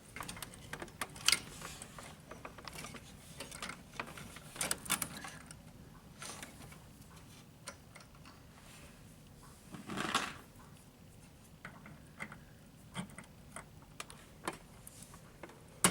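Irregular clicks and light scraping of a CPU heatsink and its mounting fasteners being handled and set in place, with a few sharper clicks spread through.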